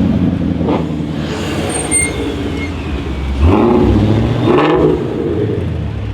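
Jaguar F-Type R's supercharged V8 through a straight-piped Larini exhaust, running steadily, then revved up and back down about three and a half seconds in. There is a sharp crack from the exhaust under a second in and another during the rev.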